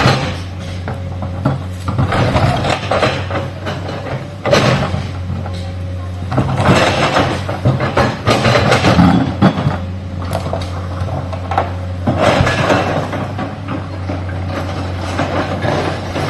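Excavator working earth and rock: a steady diesel engine hum under repeated stretches of the bucket scraping and clattering against stone and soil.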